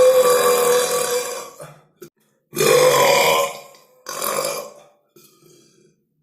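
A person belching deliberately and loudly, several burps in a row. The first is long, with a slowly falling pitch, and dies away just under two seconds in. A second follows about half a second later, then a shorter third, then a faint short one near the end.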